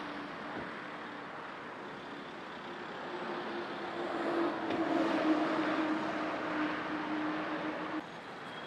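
Road traffic from a slow-moving queue of cars and minibuses, a steady noise with one vehicle's engine drone building from about three seconds in, peaking near the middle as it passes close, then fading. The noise drops suddenly near the end.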